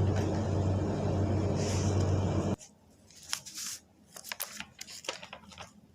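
A steady low hum with a hiss over it, which cuts off abruptly about two and a half seconds in. Faint scattered clicks and rustles follow.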